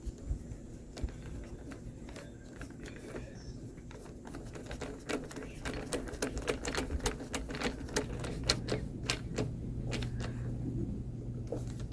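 Hand ratchet clicking in quick, uneven runs as the last mounting bolt is run down, the clicks coming faster and louder in the second half.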